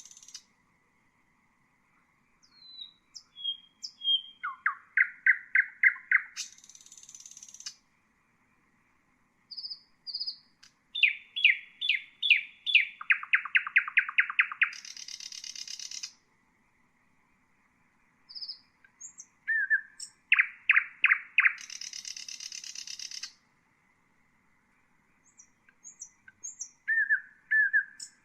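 A nightingale singing in separate phrases with short silences between them. Each phrase starts with a few high chips, runs into a fast series of repeated notes, and ends in a harsh buzzing rattle.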